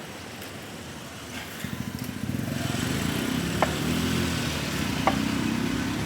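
A vehicle running close by, its steady engine or motor sound building up about one and a half seconds in and holding, with two short sharp ticks in the second half.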